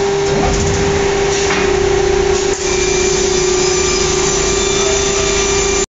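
CNC router's spindle running with a steady high whine, machining a wood-grain cabinet panel, over the hiss of its dust extraction. The sound cuts off suddenly near the end.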